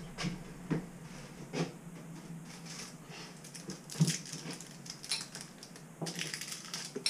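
Scattered light knocks and rustling of things being handled, with a short hissy scraping stretch near the end.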